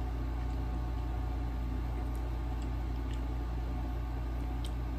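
Steady low background hum, with a few faint clicks of a metal fork against a bowl in the second half.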